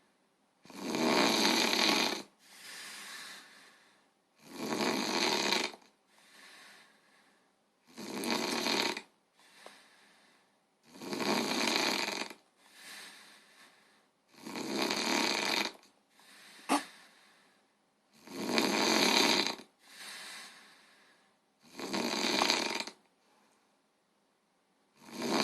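Heavy, regular snoring: a loud snore about every three and a half seconds, each followed by a softer, shorter breath. A brief sharp click comes a little past the middle.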